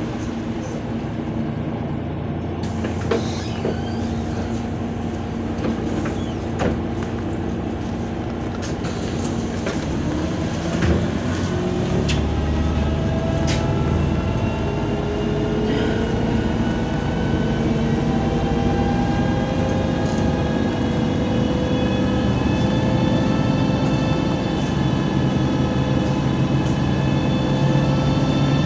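Inside a MAZ 203 city bus pulling away and accelerating: the engine hum grows louder and a drivetrain whine climbs in pitch, drops back and climbs again several times as the bus shifts up through its gears. Occasional rattles and knocks come from the cabin.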